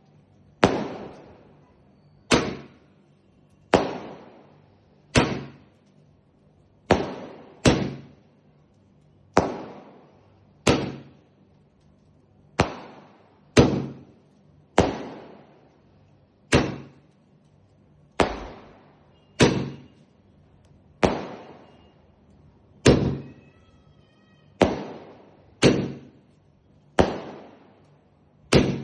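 A 30-shot firework cake firing shot after shot: sharp bangs about every second and a half, each trailing off in an echo, about twenty in all.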